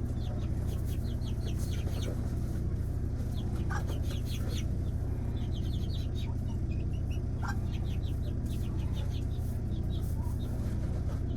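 A flock of chicks peeping in quick trains of short, high chirps, with a couple of lower single calls, over a steady low hum.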